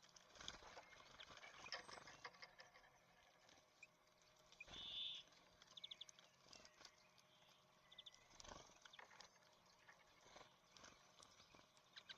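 Small songbirds at a seed feeder: soft irregular pecking and tapping as they work at sunflower seeds, with a brief high note about five seconds in and a few short high chirps.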